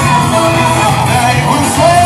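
Recorded song with a singing voice over full backing, played loud.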